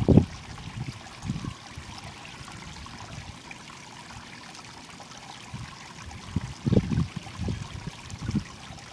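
Stream water running steadily, with a few short low bumps about a second in and again several times near the end.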